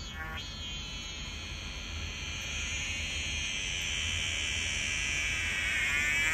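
A high, steady electronic ringing tone that slowly grows louder.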